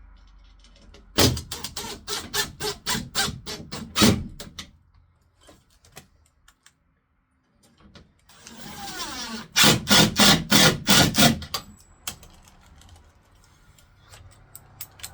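Two runs of sharp knocks, about three a second: roughly ten in the first run, then a brief rustle and a second, quicker run of about six knocks.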